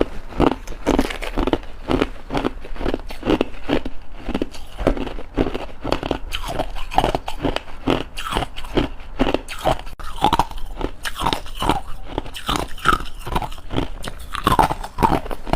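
Ice being chewed, a steady run of crisp crunches at about two a second.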